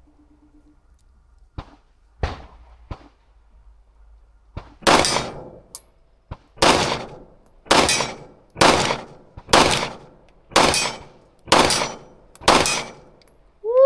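Norinco 9mm pistol firing a string of about eight shots, roughly one a second, each followed by a short echo. A few light metallic clicks come first, from handling the pistol.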